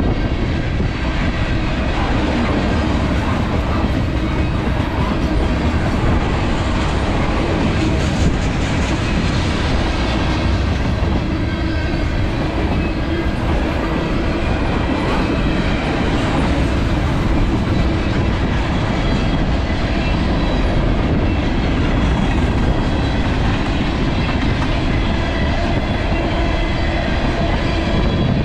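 Freight train of tank cars and hopper cars rolling past close by: a steady, loud rumble of steel wheels on the rails.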